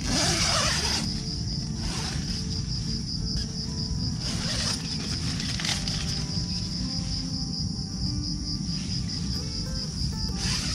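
Insects chirring steadily in a fast, even pulsing trill. Over it come rustles of tent fabric as the tent door is opened, loudest in the first second.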